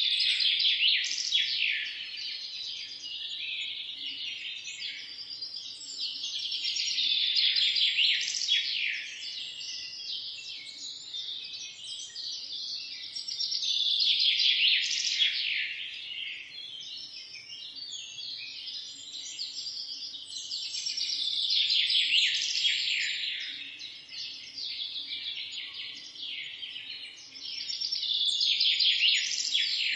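Many small birds chirping and singing at once in a dense chorus of quick high chirps and trills, swelling louder and easing back about every seven seconds.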